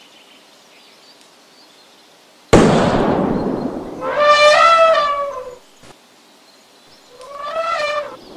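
A sudden loud blast that fades over about a second and a half, then an elephant trumpeting twice: a long call, and a shorter one near the end.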